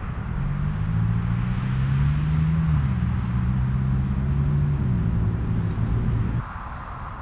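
A motor vehicle's engine running close by in roadway traffic, a low steady hum that drops in pitch once about halfway through and stops abruptly near the end.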